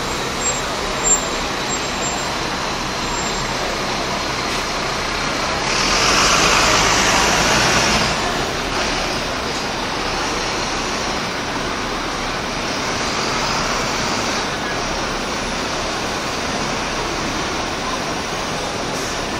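Double-decker buses running and moving off through a bus station: steady engine and traffic noise. A louder rush of noise comes about six seconds in and lasts a couple of seconds. Two brief knocks sound near the start.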